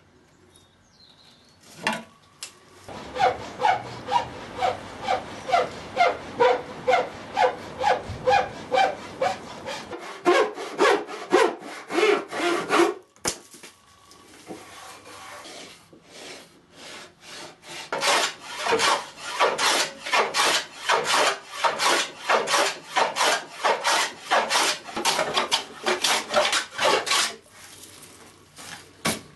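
Hand saw cutting through a pine pallet board in a steady rhythm of push and pull strokes, about two a second. The strokes break off about halfway through, then come back louder and a little quicker.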